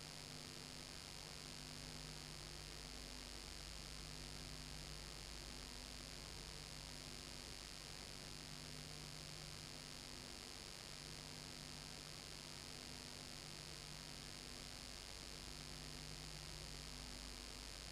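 Faint steady electrical mains hum with a hiss, and a faint low tone that pulses on and off at a regular pace.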